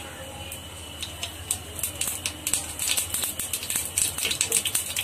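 Mustard seeds sizzling and crackling in hot oil in a pan. The pops are sparse at first and come quicker and louder from about a second in, as the oil is hot enough for tempering.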